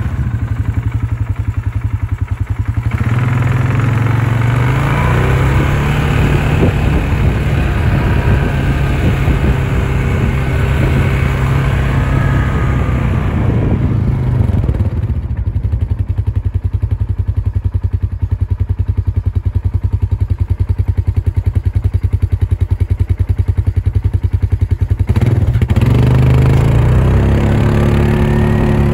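ATV engine running while riding, its note rising and falling with the throttle. The higher part of the sound thins out for about ten seconds in the middle.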